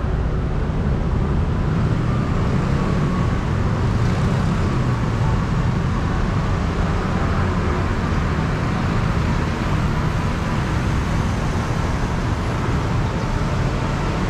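Steady city road traffic noise with a strong low rumble.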